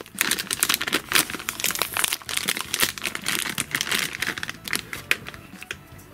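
Thin clear plastic bag crinkling as hands open it and pull toy parts out; the dense crackle eases off about five seconds in.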